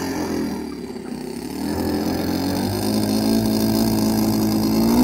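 Saito 182TD twin-cylinder four-stroke glow engine of a large RC biplane running up. Its pitch rises over a couple of seconds and then holds at a steady high speed as the model starts its takeoff roll across the grass.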